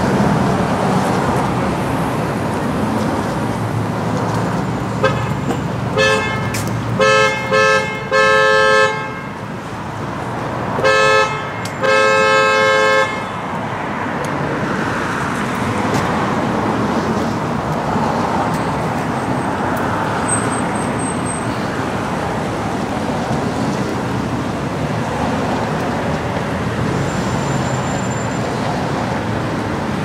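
Vehicle horn honking in two bursts, a few short toots each ending in a longer blast, over a steady background hiss.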